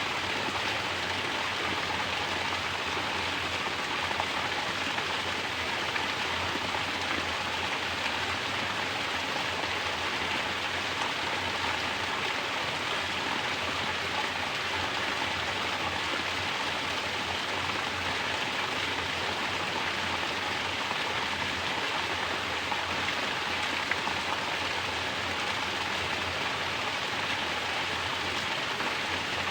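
Mountain water pouring from a natural shower spout and splashing down, a steady, even hiss of falling water that doesn't change.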